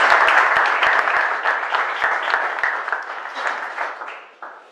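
Audience applauding, loud at first and then thinning out, dying away about four seconds in.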